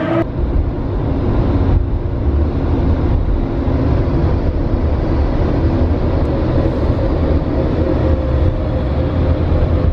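Steady low rumble of a moving car heard from inside the cabin: engine and road noise with a faint steady hum above it.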